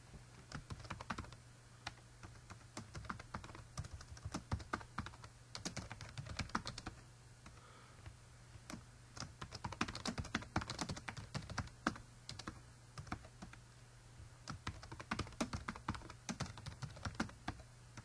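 Typing on a computer keyboard: runs of quick keystrokes with a couple of short pauses, over a steady low hum.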